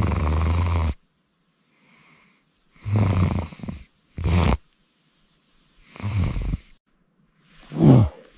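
A person snoring in a series of loud, rasping snores, one every second or two, the last one sliding down in pitch.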